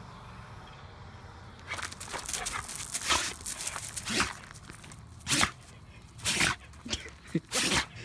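Husky sneezing over and over, a run of short, sharp sneezes roughly a second apart that starts about two seconds in.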